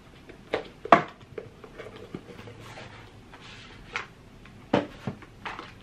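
Scissors snipping through a sticker seal, then a cardboard gift box being opened and handled: a handful of sharp clicks and taps, the loudest about a second in, with brief rustles of card and paper between them.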